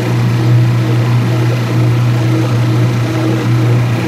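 Speed Queen washing machine's electric motor running with a loud, steady low hum and a fainter tone above it that pulses on and off. It is a noise the owner is unsure about: normal, or a sign the machine needs servicing.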